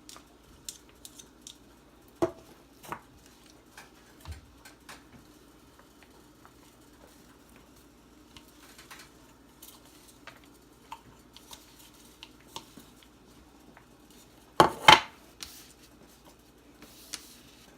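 Utensil and bowl clinking in a kitchen: scattered light taps and scrapes, with a louder double clatter about fifteen seconds in.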